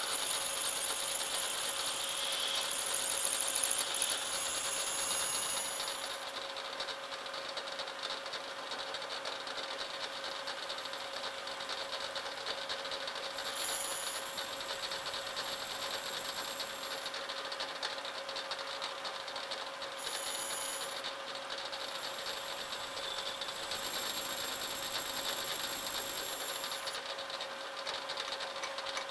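Metal lathe running under a light boring cut, a small high-speed-steel boring bar cutting inside a gear's bore: a steady machine hum with a constant tone and a hiss of cutting. A thin high whistle rises and falls away several times, first in the opening few seconds, again about halfway through and for a stretch later on.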